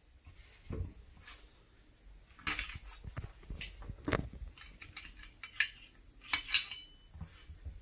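Springfield XD9 Tactical pistol being field-stripped by hand: the slide coming off the frame and the recoil spring assembly and barrel lifted out. This gives a series of scattered metallic clicks, clinks and knocks as the steel parts are handled and set down, with a brief ringing clink near the end.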